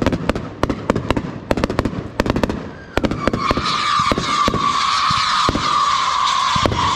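Consumer fireworks going off in a finale barrage: a rapid string of sharp bangs, several a second. About three seconds in, a loud steady whistle with a hiss starts and holds, sinking slightly in pitch, while a few bangs continue under it.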